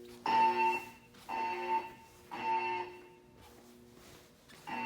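Siemens MXL-V fire alarm speakers sounding the temporal (Code 3) evacuation tone: three short tones about a second apart, a pause of nearly two seconds, then the next set of three beginning near the end.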